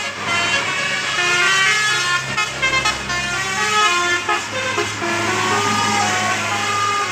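Basuri telolet bus horn playing a quick tune of short notes that step up and down in pitch, over a steady low engine hum.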